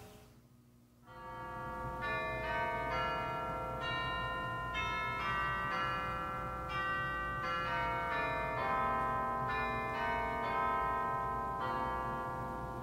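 Pipe organ playing slow, sustained chords with a moving melody line, starting about a second in.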